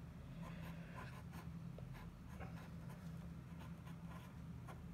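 Pen writing on paper: many short scratching strokes and light taps, over a faint steady low hum.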